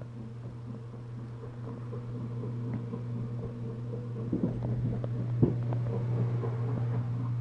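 A steady low hum, with rustling and a few sharp clicks in the second half.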